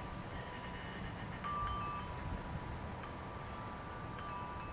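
Wind chimes ringing, with several metal tones overlapping and ringing on. A fresh strike comes about every second and a half, over a steady low rumble.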